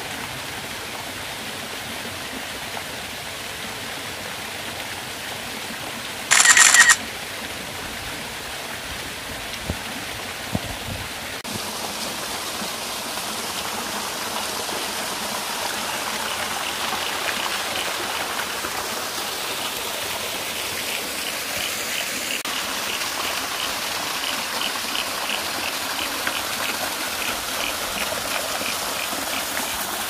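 Small waterfall splashing down rock into a shallow pool: a steady rush of falling water that grows a little louder partway through. About six seconds in a brief, loud high-pitched sound cuts in for under a second, and a faint fast high ticking runs through the second half.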